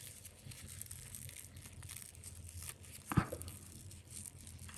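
Paper yarn crinkling and rustling as a crochet hook draws it through single-crochet stitches, with one short, louder knock about three seconds in.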